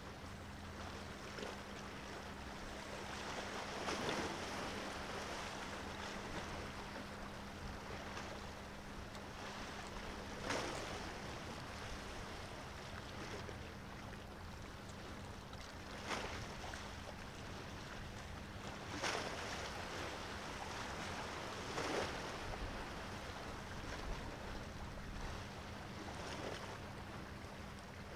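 Small waves washing against the shore in soft surges every few seconds, over a steady hiss of water and a faint, steady low hum.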